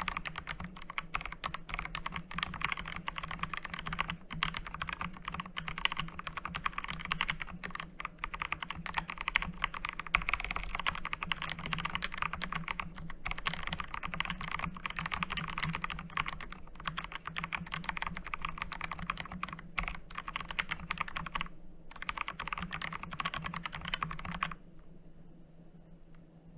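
Fast, continuous typing on a Digital Alliance K1 Meca 2.7 RGB hot-swappable mechanical keyboard: a rapid stream of key clicks, with a short break a little after 21 seconds, that stops about 24 seconds in.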